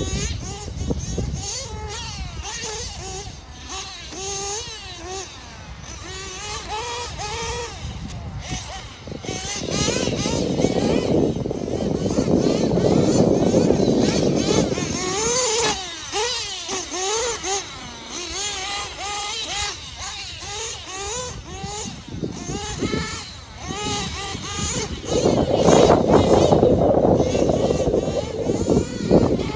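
Small nitro engine of an RC truggy running and revving up and down as the truggy drives, its pitch rising and falling. It grows louder from about ten seconds in, and again near the end.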